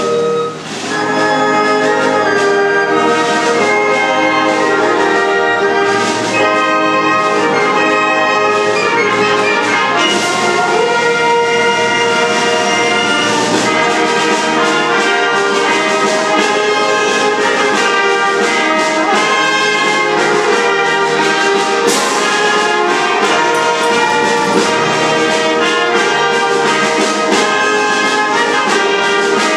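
Concert wind band playing loudly, with the brass to the fore. The sound dips briefly just under a second in, then the full band comes back in and plays on.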